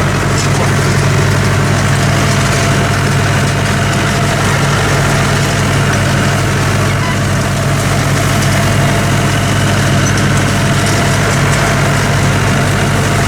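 Vintage Massey Ferguson tractor's diesel engine running steadily under load while rowing up grass, heard from inside the cab.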